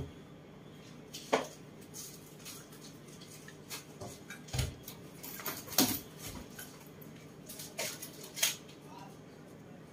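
Scattered light knocks and clinks of small hard objects being handled, the sharpest about a second in, near the middle and near the end.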